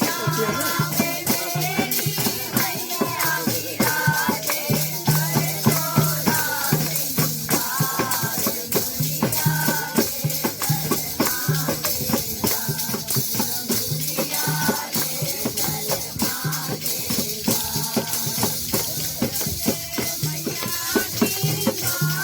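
Devotional kirtan music: women's group singing over fast, jingling hand percussion with a low note pulsing about once a second.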